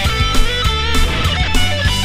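Rock music with electric guitar and a steady drum beat, laid over the footage as a soundtrack.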